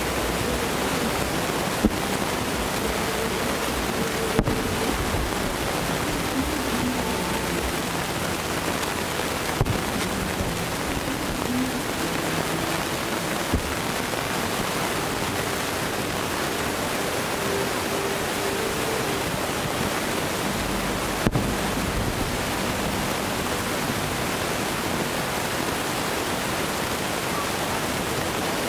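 Distant aerial firework shells bursting: a handful of sharp reports scattered several seconds apart, over a steady rushing noise.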